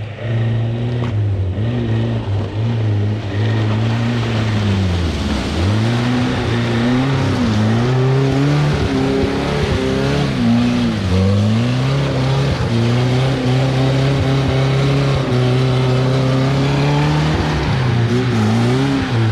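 Off-road 4x4 engine working hard under load. Its pitch repeatedly climbs, then drops back sharply three times, as the revs rise and fall.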